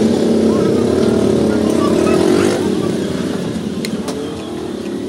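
A motor vehicle engine running close by, loud at first and fading away after about two and a half seconds. A couple of sharp clicks come near the end.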